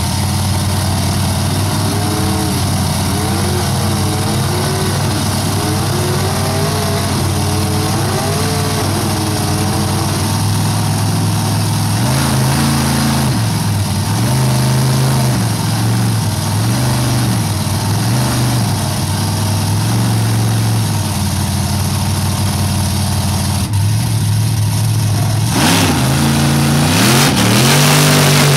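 Big engines of two lifted mud trucks pulling against each other in a tug of war, revving up and down again and again under heavy load over a steady low drone. Near the end there is a louder, harsher stretch of hard revving as the tires spin and smoke in the mud.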